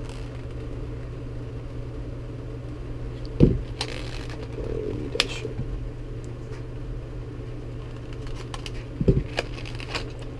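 Hard clear-plastic clamshell lure package being handled and worked open, giving scattered clicks and crackles with two louder knocks, about three and a half seconds in and near the end, over a steady low hum.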